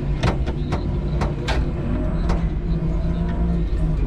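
Electric forklift backing out of a trailer with a load of OSB, its drive giving a steady low hum. Several sharp knocks and clatters from the forks, mast and load come in the first two and a half seconds.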